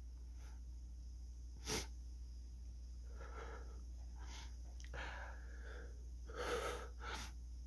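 A man's sharp sniff about a second and a half in, then several softer, shaky breaths and sniffles: he is fighting back tears.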